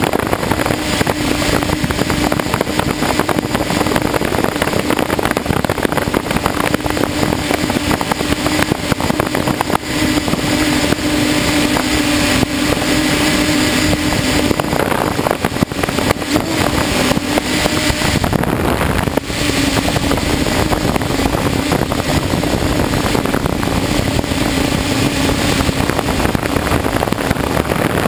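DJI F550 hexacopter's six brushless motors and propellers buzzing steadily in flight, heard from the onboard camera with a rush of air over it. The pitch of the buzz steps a little up and down several times as the throttle changes.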